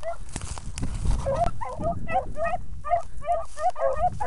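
Beagles baying: short, repeated pitched bawls from more than one hound, two or three a second from about a second in, sometimes overlapping. The hounds are giving tongue while running a rabbit's scent in a brace.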